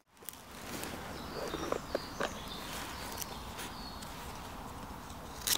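Quiet woodland background with a few faint, short bird chirps and light handling rustle, and a sharp click near the end.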